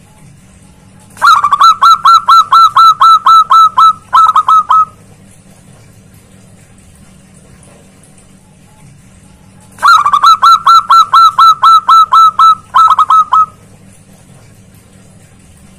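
Zebra dove (perkutut) singing loud: two bouts of quick repeated cooing notes, each a fast run of about a dozen notes, a brief break, then a few more. A steady low hum sits beneath.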